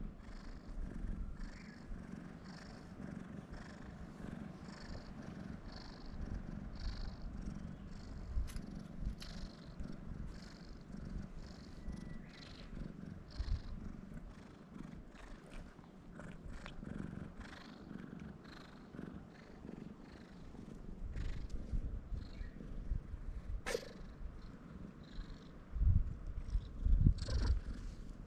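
A stray tabby cat purring steadily, the purr swelling and fading with each breath, a little faster than once a second. Near the end come a few louder low thumps.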